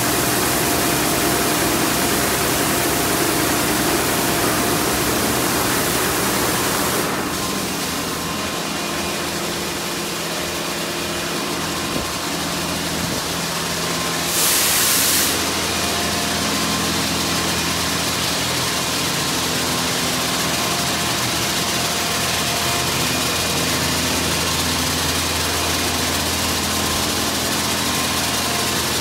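Touchless car wash at work: high-pressure water spray hisses against the vehicle for about the first seven seconds, then stops, leaving a steady low hum of the wash's pumps and motors. A brief loud hiss comes about halfway through.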